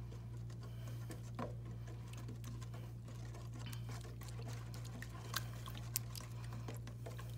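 Black plastic spoon stirring a runny glue-and-borax slime mixture in a stainless steel bowl: soft wet squelching with faint, irregular ticks of the spoon against the metal, a couple of them sharper near the end.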